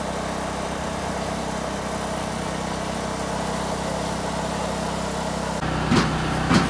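An engine running steadily at idle, a low even hum. Near the end the sound changes and two sharp knocks come about half a second apart.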